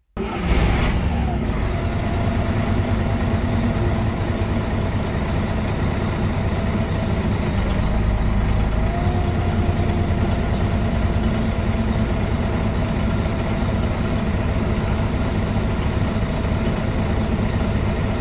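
The MAN D2866 six-cylinder diesel of a 2001 MAN NG313 articulated city bus running steadily, heard from inside the passenger cabin as a loud, even rumble. A short hiss comes right at the start.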